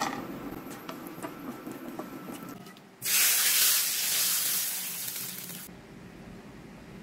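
Hot ghee and fried walnuts poured from a frying pan onto cold yogurt, sizzling hard as the fat hits. The loud hiss starts suddenly about three seconds in and dies away over the next two to three seconds.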